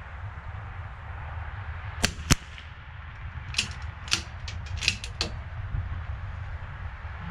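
Rifle shots: two sharp, loud cracks about a third of a second apart, then a quick string of six or seven fainter cracks over the next couple of seconds, over a steady low rumble.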